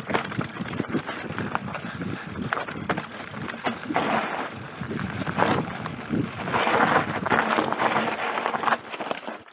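Mountain bike descending a dirt singletrack: the tyres rolling and scrabbling over loose dirt and stones, with the bike rattling, and louder surges of noise about four seconds in and again from about six and a half seconds to near the end.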